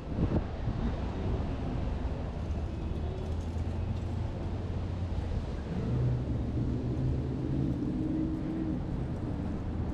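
City street traffic: a steady low rumble of vehicles, with a short thump just after the start and a vehicle's engine hum coming up about six seconds in as it draws nearer.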